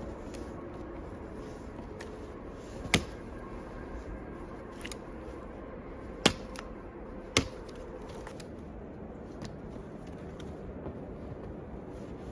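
A few sharp clicks or knocks, three of them loud, over a steady low background noise.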